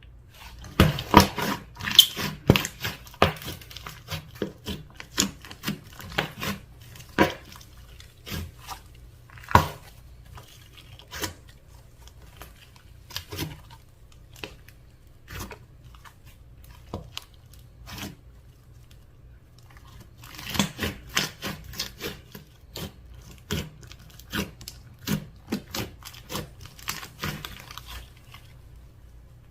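Slime being squished and worked, giving a run of sharp wet pops and crackles. They come thickest in the first few seconds and again about two-thirds of the way through, sparser in between.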